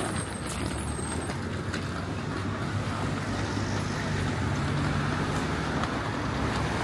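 Road traffic: motor vehicle engines running, with a low engine hum that grows louder from about halfway through as a vehicle comes closer.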